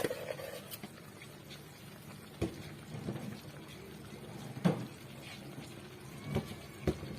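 Cookware being handled: a few scattered soft knocks over a faint steady low hum. The loudest knock comes a little past halfway.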